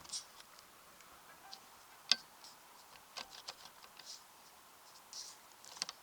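Scattered light clicks and soft rustles of hands working at the roof vent and its self-adhesive foam pad, with one sharper click about two seconds in.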